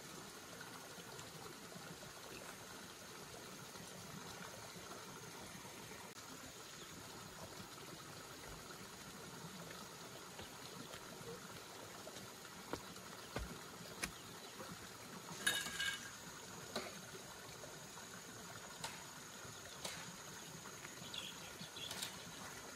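Faint steady background like trickling water. From about halfway, a scatter of light knocks and clicks from metal paint tins being carried and set down, the loudest a sharp ringing clink about two-thirds in.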